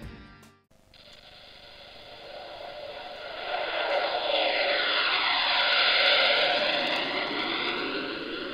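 F-22 Raptor fighter jet flying past: a jet roar that swells over several seconds, is loudest about six seconds in, then fades, with a swirling sweep in its tone as it goes by.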